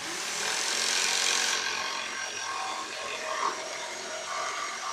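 Jigsaw cutting through 1/4-inch plywood, a steady buzzing rasp of the blade in the wood. It starts abruptly, is at its loudest and hissiest for the first second and a half, then carries on a little softer.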